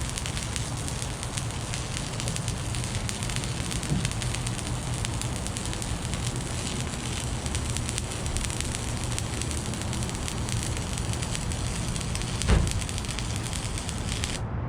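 Electric arc welding: a steady, dense crackling hiss of the arc over a low hum. A single thump about 12.5 seconds in.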